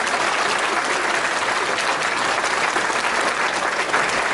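Applause, dense and steady.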